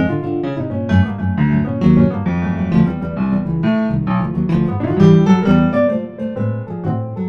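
Solo piano music, busy played passages of many notes.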